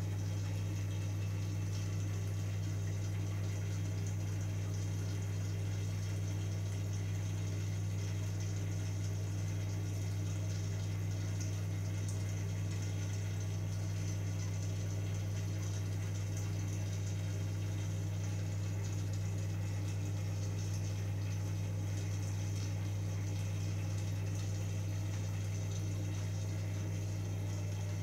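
Running aquarium equipment: a steady low electric hum from the pump, with the even hiss and bubbling of water being churned and aerated at the surface.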